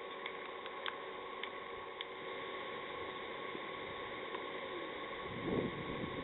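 Outdoor ambience from a cricket ground's field microphone: a steady hiss with a few faint ticks, and a brief swell of low sound about five seconds in.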